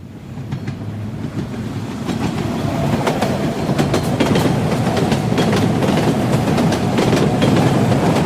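Front wheel of a Lada Niva being jerked back and forth by hand, giving a dense, irregular run of knocks and rattles that builds over the first few seconds and then holds steady. The knocking is play in the front suspension, which could come from the hub bearings, the upper ball joint or the control-arm silent blocks.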